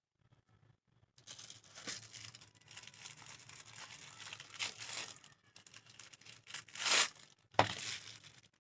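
Rustling and crinkling of material being handled, with louder crackles about two seconds in, near five seconds, and twice near the end.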